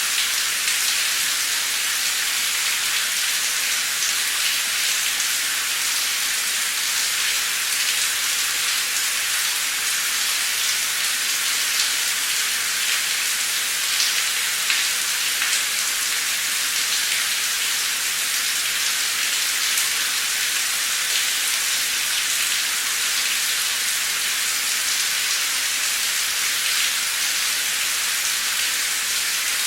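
Heavy, torrential rain pouring down steadily, a dense even hiss of drops with faint individual ticks scattered through it.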